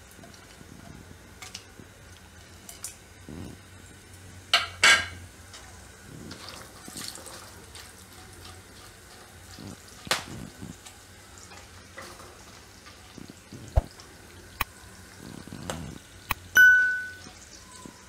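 Silicone spatula knocking and scraping against a nonstick kadai while whole spices fry in hot oil with a faint sizzle, the tempering for chhole; a few sharp clinks, the loudest about five seconds in. Near the end, one short bright electronic ding.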